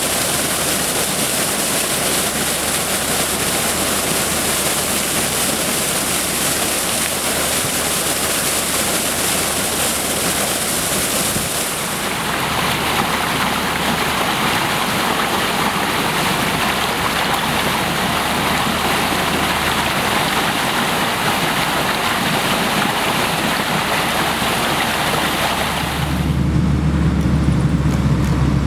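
Muddy water gushing out of large pump discharge hoses into a canal in a heavy, steady rush. About 26 seconds in, it gives way to the low, steady hum of engines running.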